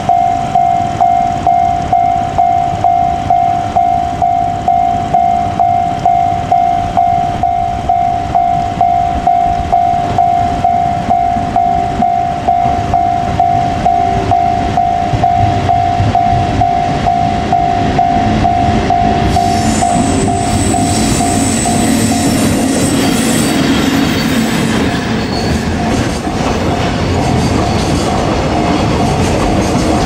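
Japanese level-crossing alarm bell ringing steadily at about two strikes a second as a JR Freight EF81 electric locomotive hauling container wagons approaches. About 20 seconds in, the locomotive reaches the crossing and the running noise of the locomotive and wagon wheels on the rails rises over the bell.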